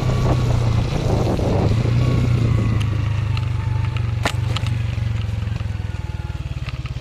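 A vehicle engine running steadily with a low, fast-pulsing hum, under a hiss of heavy rain and wind noise that eases after about two seconds. A single sharp click comes about four seconds in.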